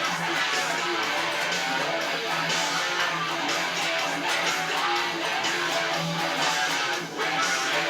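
Guitar music with strummed chords, dipping briefly about seven seconds in.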